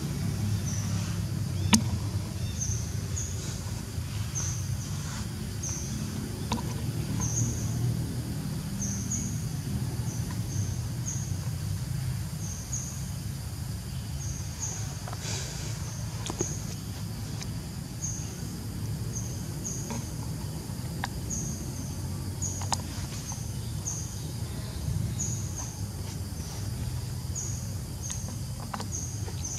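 Outdoor forest ambience: a steady low rumble under a short, high chirp that repeats about once a second. There are a few faint clicks, and a sharp click comes about two seconds in.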